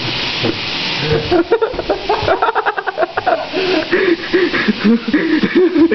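Human voice making rapid, bouncing vocal sounds: short wavering notes, several a second, starting about a second and a half in and carrying on to the end.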